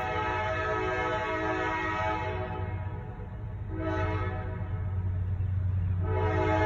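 Diesel locomotive air horn of a Norfolk Southern freight train sounding for a grade crossing: a long multi-note blast that ends about two and a half seconds in, a short blast about a second later, then another long blast starting near the end. A low steady rumble runs underneath.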